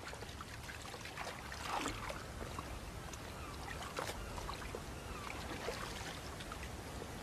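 Soft trickling and splashing of water as a fishing net is raised out of a fishery lock channel, with faint scattered drips and small splashes.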